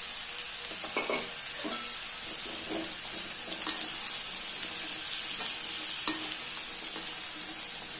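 Chickpea sundal with grated coconut sizzling in a kadai while a slotted spatula stirs and scrapes through it, with a sharp knock about six seconds in.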